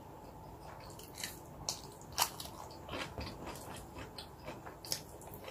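Close-miked eating sounds: chewing and biting food with a string of short, sharp crunchy clicks and wet mouth noises. The loudest click comes a little over two seconds in.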